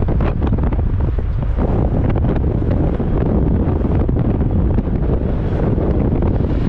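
Wind buffeting the microphone, a steady low rumble, over the noise of cars and tractors driving past close by.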